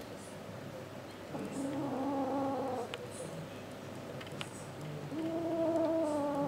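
A kitten's low, drawn-out possessive growl ('murmuring') as it guards a sock from another kitten: two long steady-pitched growls, the first about a second in and lasting about a second and a half, the second beginning about five seconds in.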